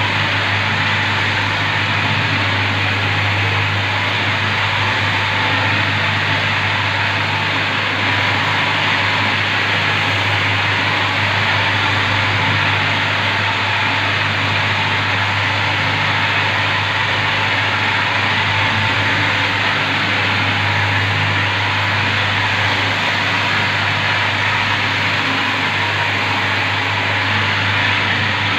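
Arm-mounted marble polishing machine running steadily, its small polishing pad rubbing over marble tiles: a constant motor hum under an even hiss.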